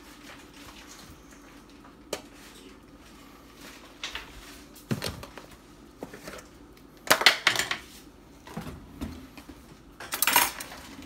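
Clinks and short rattles of kitchenware against a glass baking dish while raw chicken is seasoned with pepper. A few separate knocks come first, then two louder clattering bursts about seven and ten seconds in.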